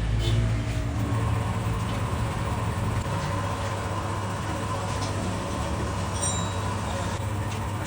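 Honda 125 motorcycle's single-cylinder four-stroke engine running steadily through its silencer, with a constant low hum and no revving. This is the exhaust sound the video treats as a silencer problem.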